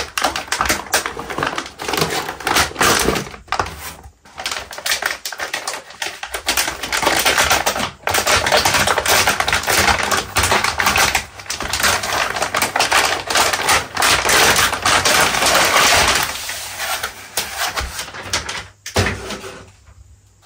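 Metallized anti-static shielding bag crinkling and crackling as it is handled and pulled off a motherboard. The dense crackle thins out and gets quieter near the end.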